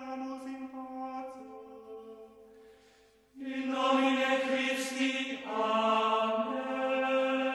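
Intro music of long, held chant-like voices in sustained chords; the first chord fades away over the first three seconds, then a louder chord comes in and shifts to another chord about two seconds later.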